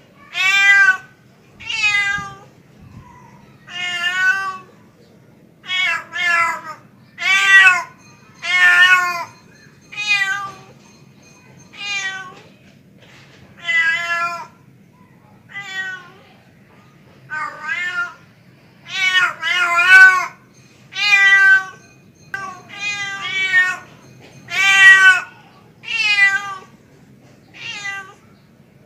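Male cat meowing over and over, about twenty calls that come one every second or two, some in quick pairs, each call bending up and down in pitch: a tom cat's mating call to a female.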